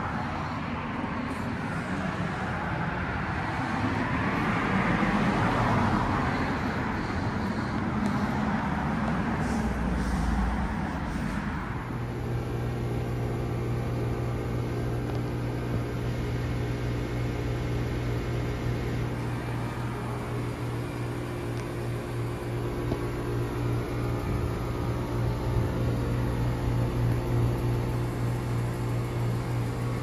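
Residential heat pump outdoor units running. First comes the steady rush of air from a condenser fan. After a cut about 12 seconds in, it changes to a steady low electrical hum with a strong single tone from a wall-mounted unit.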